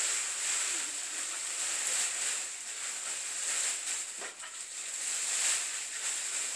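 Plastic wrapping rustling and crinkling continuously as a flat-screen TV is handled and unwrapped.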